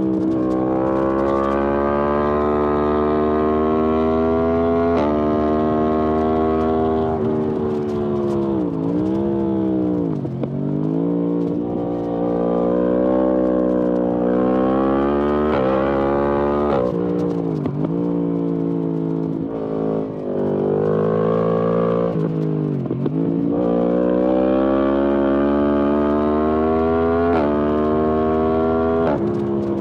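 Yamaha MT-10 SP's crossplane inline-four through an Akrapovic exhaust, pulling hard with its pitch rising through the revs and stepping down at each quick upshift. Several times the throttle closes and the revs drop and blip back up, as on downshifts into corners.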